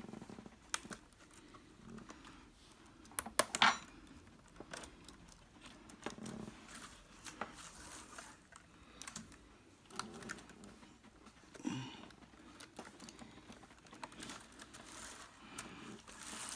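Scattered plastic clicks and taps as a replacement keyboard is pressed and snapped into place in a Compaq Presario CQ57 laptop, with a louder cluster of clicks about three and a half seconds in.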